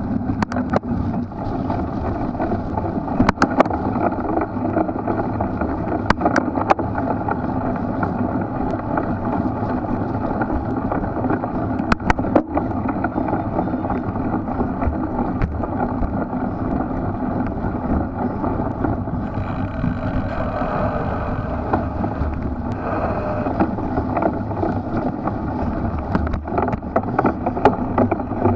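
Steady rush of wind on the microphone and tyre rumble from a cyclocross bike ridden over a muddy course. A few sharp clacks come through scattered across the stretch and several more near the end, as the bike rattles over bumps.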